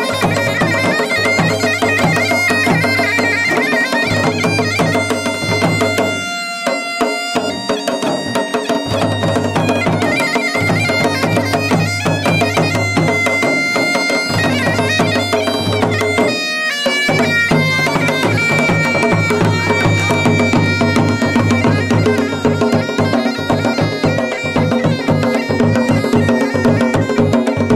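Masakbeen (Garhwali bagpipe) playing a folk melody on the chanter over a steady low drone. The drone drops out briefly twice, about six seconds in and again around sixteen seconds.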